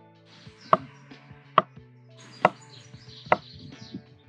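A knife chopping food on a cutting board: sharp, evenly spaced strokes a little under one a second, with a light scraping hiss between them. Soft background music with held notes runs underneath.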